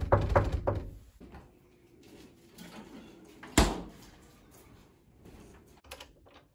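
Knuckles knocking on a wooden door, about four quick knocks in the first second. A single loud thump about three and a half seconds in.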